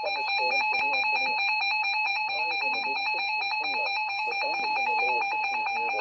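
Emergency Alert System attention signal: a steady electronic alarm tone announcing a tornado warning.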